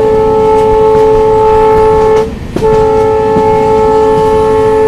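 Train horn sounding a long steady blast that breaks off about two seconds in and sounds again a moment later, over the running noise of the moving train.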